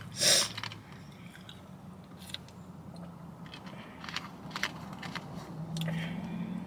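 Plastic screw cap of a grape soda bottle being twisted and worked by hand. A short loud burst of noise comes just after the start, followed by a few faint clicks.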